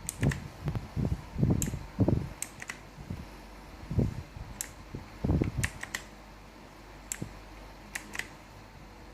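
Keys being pressed on a K29 mechanical keyboard with clicky blue switches: a few irregular, sharp clicks, some landing with a low thud, over a steady low hum.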